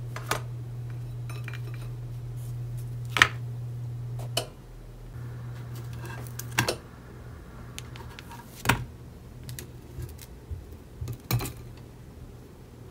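Slices of ciabatta set down and turned in a dry nonstick frying pan on an induction hob, heard as a few separate sharp knocks of bread and pan spread across the time, with no sizzle. A low steady hum runs beneath for the first four seconds or so, then drops away.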